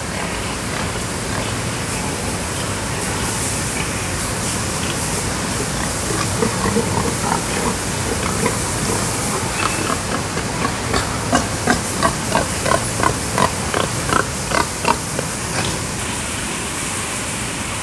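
Domestic pigs calling in a quick run of short, repeated grunts, about three a second at their loudest near the middle and fading out toward the end, over a steady hiss.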